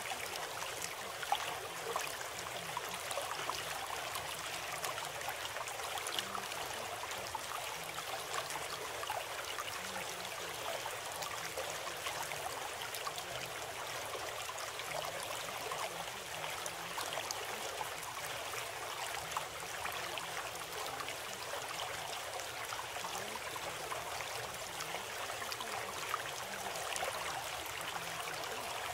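Steady sound of flowing water, like a stream, holding an even level throughout: the nature-sound bed of a subliminal recording.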